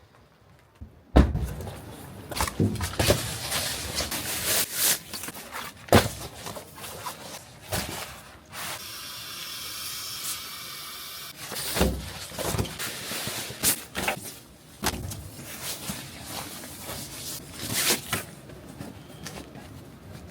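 Handling and movement inside a pickup truck bed tent: irregular knocks, scrapes and rustles, with a steady hiss for about three seconds midway.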